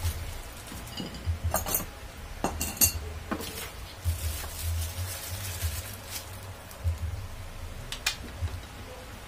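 Handling noise as a stand fan's metal pole is fitted into its plastic base: sharp metallic clinks about one and a half seconds in and again between two and a half and three seconds, crinkling plastic wrap for a stretch in the middle, and one more click near the end.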